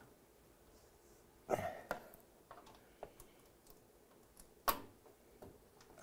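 Faint clicks and taps of hands working the sheet-metal housing panel and chrome feet of an espresso machine, with one sharper click about three-quarters of the way through. A short breathy vocal sound comes about one and a half seconds in.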